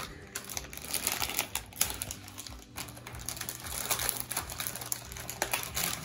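Foil blind-bag wrapper crinkling and crackling as it is handled and torn open by hand, a dense run of irregular crackles.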